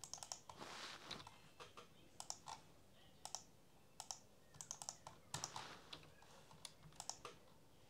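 Faint, irregular clicking of a computer keyboard and mouse, a few scattered clicks at a time.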